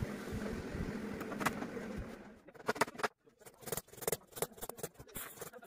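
A steady mechanical hum for about two seconds, then it stops. What follows is a run of sharp metallic clicks and taps as a coil of zigzag sofa springs is handled and struck with a hammer.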